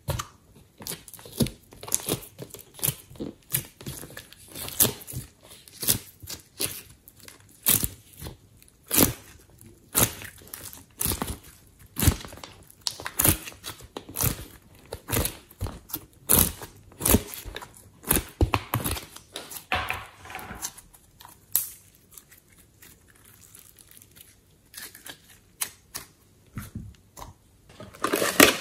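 Sticky slime being pulled out of a silicone ice-cube tray and squeezed by hand, giving irregular sharp sticky pops and crackles about one or two a second. It quiets for a few seconds about three quarters through.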